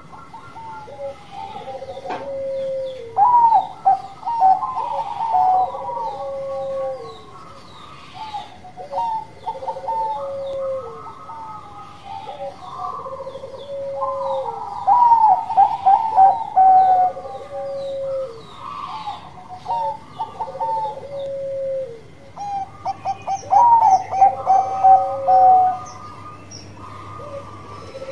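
Bangkok-strain zebra dove (perkutut) singing its cooing song over and over: each phrase is a quick stutter of higher notes ending in a longer, lower coo that drops at the end, repeating about every two seconds.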